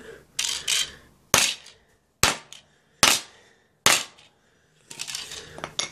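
Small claw hammer striking a DVD disc lying on concrete: four sharp cracks a little under a second apart, with lighter clattering knocks before and after them.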